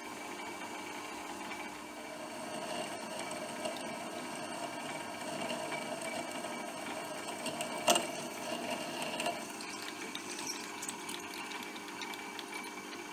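Metal lathe running while a twist drill held in the tailstock chuck bores into the end of a spinning stainless steel rod: a steady motor hum with the scratch of the cut, and one sharp click about eight seconds in.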